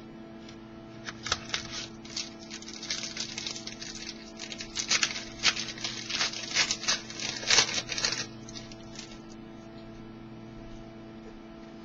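Trading cards being handled and shuffled by hand, a quick patter of soft clicks and rustles for about eight seconds that then stops, leaving a steady low hum.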